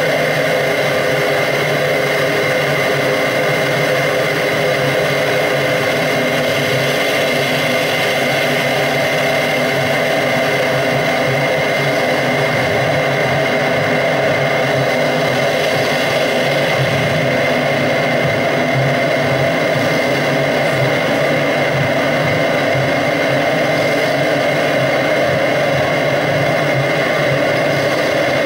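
Dense, steady electronic drone played live from a laptop: many held tones layered over a noisy, engine-like wash, unchanging throughout.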